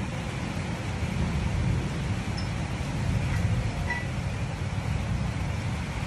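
Strong storm wind blowing in gusts and buffeting the microphone: a steady, low rumbling noise that swells and eases.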